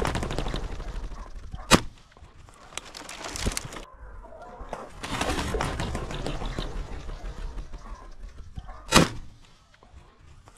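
Two shotgun shots about seven seconds apart, the second one dropping a pheasant. Before the first shot, a pheasant's wings flutter as it flushes from the brush, and there is rustling between the shots.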